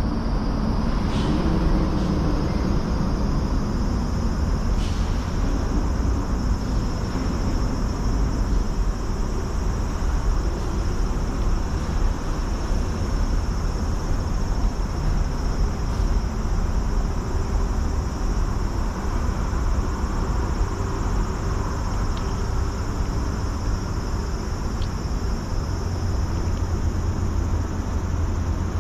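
A cat eating wet food from a metal dish, with a few faint clicks, over a steady low outdoor rumble.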